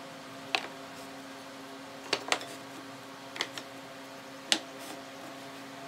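Wooden slats being flipped over and set down on a plywood work table: about six sharp wooden clacks, some in quick pairs, over a faint steady hum.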